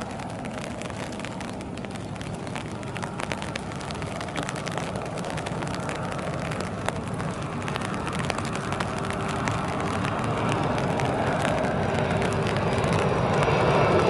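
Airbus A330 airliner's jet engines on final approach with gear down, a steady rushing roar growing louder as the aircraft nears.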